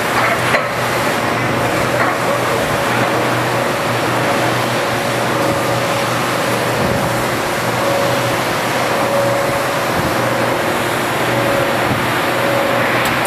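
Industrial machinery running: a steady loud noise with a constant low hum and a higher whine that fades in and out.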